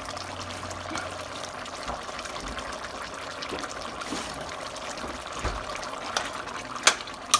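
Pot of stew chicken simmering on the stove, a steady bubbling hiss. Near the end a metal spoon knocks sharply against the stainless pot a couple of times as stirring starts.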